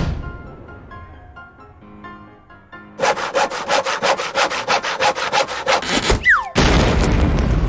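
A fast, even scraping like sawing, about five strokes a second, for about three seconds, then a short falling whistle and a loud burst of noise, over faint background music.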